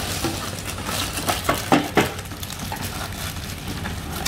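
Unboxing handling noises: a crackly rustle of packaging with a few light clicks and knocks about one and a half to two seconds in.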